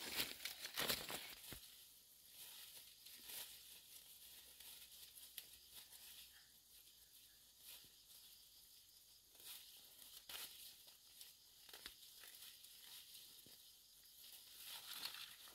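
Faint, scattered rustling and scratching of hands scrabbling in dry, crumbly soil and dead leaves while plants are pulled at, a little louder in the first second or two.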